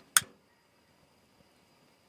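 A single sharp pop from burning firewood just after the start, then only a faint hiss.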